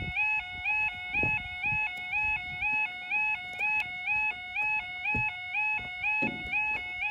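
Level crossing warning alarm sounding its two-tone yodel, a lower and a higher note alternating about twice a second, warning that a train is approaching. A few low thumps sound under it.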